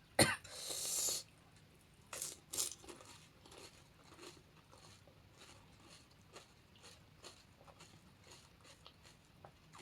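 Crunchy panipuri being bitten and chewed, its filling of chips and puffed-rice bhuja included: a sharp crunch at the start with a short hiss after it, two louder crunches about two seconds in, then steady quieter crunching as the chewing goes on.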